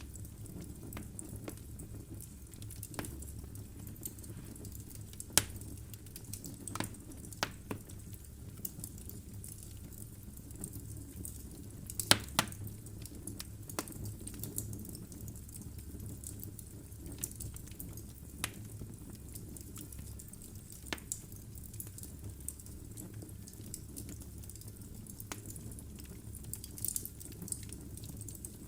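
Logs burning in a fireplace: irregular sharp crackles and pops over a low, steady rumble of the flames, the loudest pops about five seconds in and about twelve seconds in.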